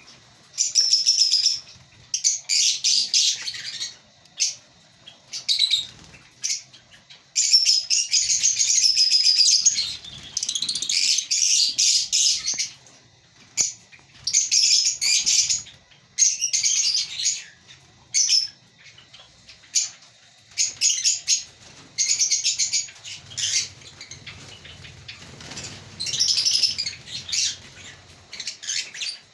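A colony of African lovebirds chattering and chirping, high-pitched, in bursts of one to three seconds with short pauses between.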